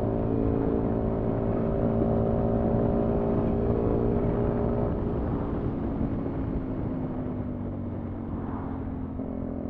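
Sinnis Terrain 125's small single-cylinder engine running as the motorcycle is ridden along a road, heard from the rider's helmet with road noise. It holds a steady note at first, then eases off and grows quieter over the second half.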